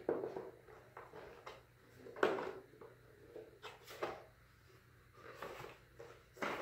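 A white plastic armour leg piece being handled as its two freshly glued halves are pressed together: a few scattered light knocks and clicks, the sharpest about two seconds in.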